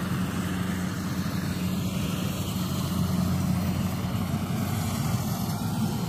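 Gatra GCH-858 combine rice harvester's 88 HP engine running steadily while harvesting, a constant low drone.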